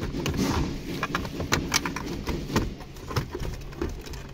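Plastic dashboard trim of a 2014 Honda Accord being handled and moved during disassembly: a series of sharp, irregular clicks and knocks with light rustling.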